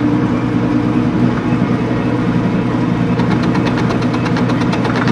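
Metal lathe running with its four-jaw chuck spinning, the work clamped off-centre for offset turning, giving a steady motor and gear hum. From about three seconds in a rapid, even ticking of about ten a second joins the hum.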